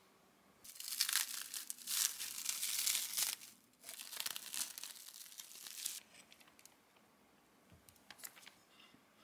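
Clear plastic wrap being pulled off a slice of cake, crinkling in two long stretches, then a few fainter crackles near the end as the plastic band around the cake comes off.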